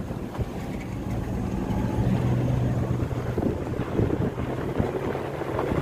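Car driving on an unpaved dirt road: a steady low engine hum with tyre and road rumble, and wind buffeting the microphone through an open window.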